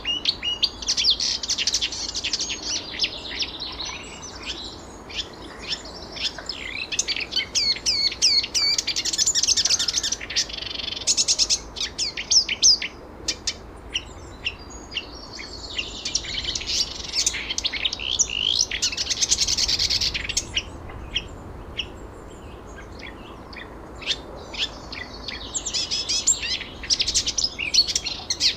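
Songbirds singing and chirping in long, busy bouts of fast, high trills and twitters, with short lulls between bouts around 13 s and 21–25 s.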